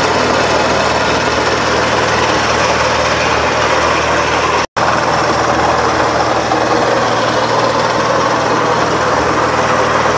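Electric spice-grinding mill running loudly and steadily while grinding dried red chillies: a steady low motor hum under a dense grinding rush. It drops out for an instant about halfway through.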